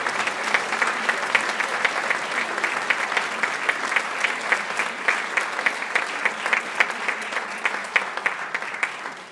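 Audience applauding steadily, with one nearer pair of hands clapping at an even beat above the rest; the applause thins out at the end.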